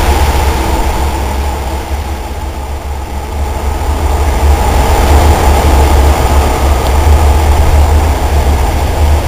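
Deep engine rumble of two diesel-electric locomotives pulling a train away into an underground tunnel, echoing off the station walls. The rumble dips a couple of seconds in, then swells again and holds.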